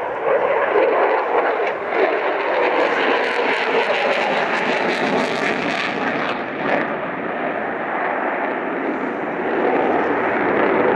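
Lockheed Martin F-22 Raptor's twin Pratt & Whitney F119 turbofans running in afterburner, a loud, steady jet noise with a stretch of sharp crackling about three to six seconds in.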